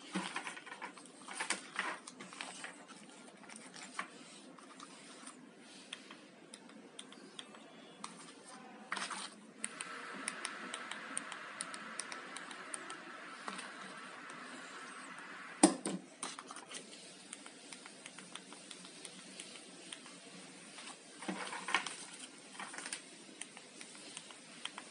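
Handling noise: scattered clicks and taps of small plastic remote controls being picked up, set down and their buttons pressed on a table, with one sharper knock about sixteen seconds in.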